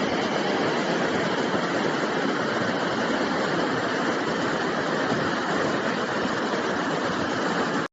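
Rushing floodwater: a steady, unbroken rush of water noise.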